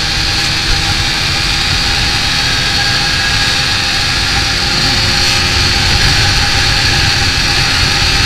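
TVS Apache RTR 200 single-cylinder engine running hard at high revs as the motorcycle gains speed, with heavy wind rush over the microphone. The freshly tuned carburettor pulls cleanly and evenly.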